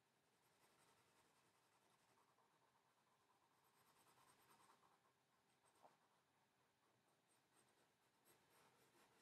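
Very faint pencil scratching on paper in short sketching strokes, a little louder about four seconds in and again near the end, with one sharp tick just before six seconds.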